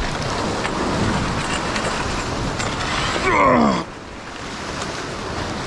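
Ocean surf washing against a granite rock ledge, with wind on the microphone. About three seconds in, a man lets out a short groan that falls in pitch, and the noise level drops slightly after it.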